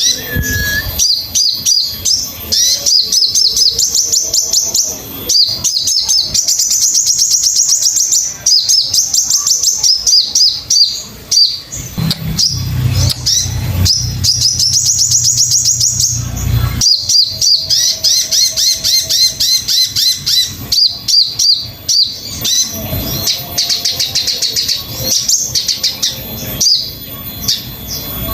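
Sogon bird singing: rapid runs of high chirps and trills in repeated bursts, with a low hum underneath for a few seconds around the middle.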